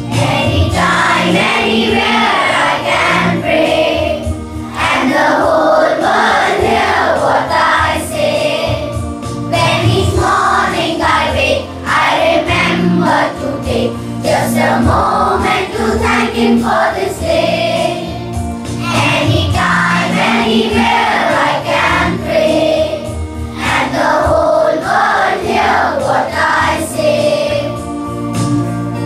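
Children's choir singing a morning prayer song in unison, with sustained instrumental accompaniment underneath.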